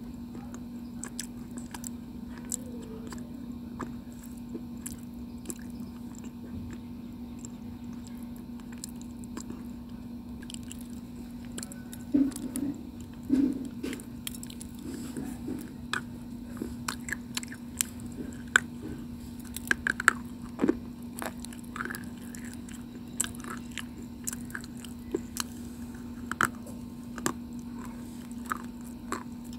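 Close-miked biting and chewing of brittle white slate stone (chalky clay), soft wet mouth sounds at first, then sharp crisp crunches from about halfway through. A steady low hum runs underneath.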